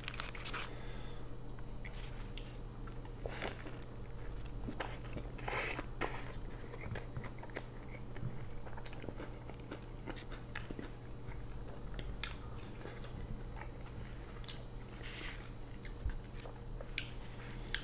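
A person biting and chewing a burger topped with onion rings: soft, wet mouth clicks with occasional crunches, irregularly spaced, over a faint steady hum.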